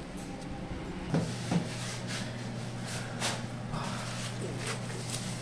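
Two soft knocks a little over a second in, then scattered light clicks and rustles of parts being handled, over a steady low hum.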